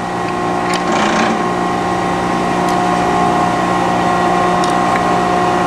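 Brown & Sharpe Micromaster hydraulic surface grinder running: a steady hum with several held tones from its motors, hydraulic pump and heat-exchanger fan as the table traverses. A brief faint clatter comes about a second in.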